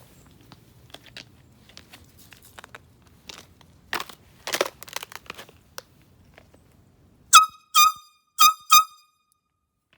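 Hand-held air horn sounding four short blasts in quick succession about seven seconds in, one high steady tone with overtones. Before them, scattered crinkling and clicks of handling.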